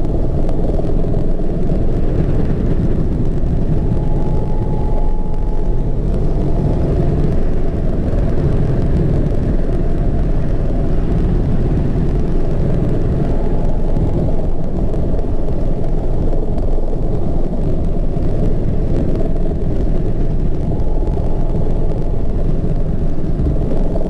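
Cockpit noise of a Mi-35 attack helicopter in flight: the twin turboshaft engines and main rotor make a loud, steady, deep rumble.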